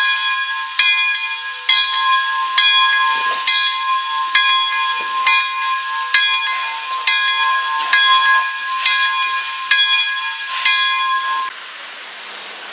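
A grade-crossing signal bell ringing about once a second over a steady, high hiss of steam from the standing Pere Marquette 1225 steam locomotive; both cut off suddenly about eleven seconds in.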